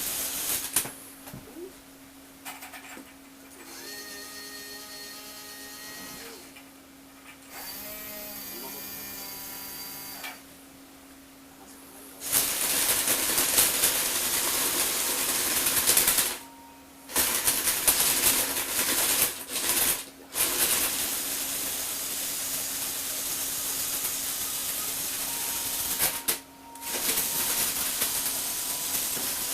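Small electric motors and gear trains of a Lego Technic rover and robot arm running. Quieter whines start and stop in the first half, one of them shifting in pitch. About twelve seconds in, a much louder, rougher gear-driven running begins and cuts out briefly several times.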